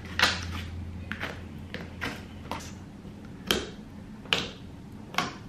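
A series of short clicks and taps, about eight in five seconds, from a plastic slime container and its lid being handled and set on a table.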